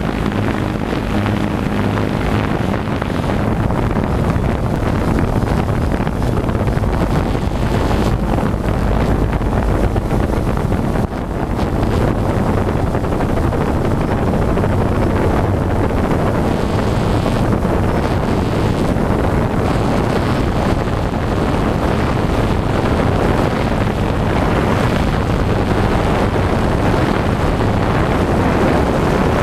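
DJI Phantom 2 quadcopter's propellers and motors running in flight, a steady hum picked up by the GoPro mounted on the drone, with wind noise on the microphone.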